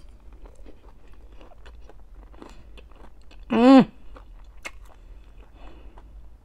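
A mouthful of shrimp being chewed with the mouth closed: soft, wet clicks and smacks. A little past halfway comes one loud hummed 'mmm' of enjoyment that rises and then falls in pitch.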